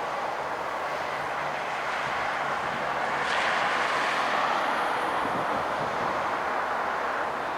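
Freight train cars rolling past on the rails, a steady rushing rumble that swells a little in the middle.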